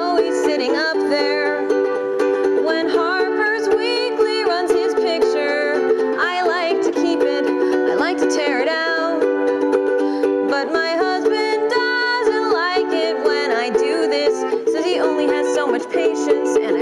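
Ukulele being strummed, a song's chords played on the strings.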